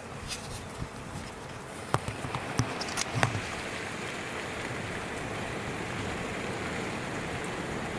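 Steady hiss of wind and rain during a thunderstorm, with a few sharp clicks about two to three seconds in.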